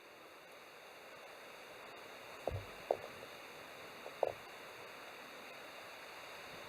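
A few short, light knocks, three or four of them a little over a second apart, over a steady outdoor hiss.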